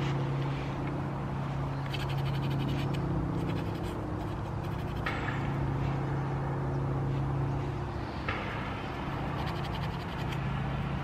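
Fine sandpaper rubbing on a carved cherry-wood spoon, scratchy strokes in short bursts a few seconds in and again near the end, over a steady low hum.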